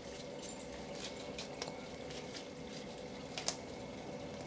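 Day-old rotis being handled and torn into small pieces by hand: faint dry crackling and rustling, with a sharper crack about three and a half seconds in.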